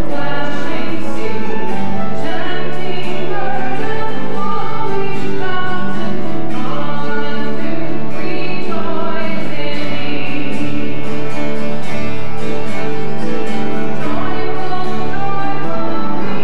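A choir singing a hymn over instrumental accompaniment that holds steady low notes.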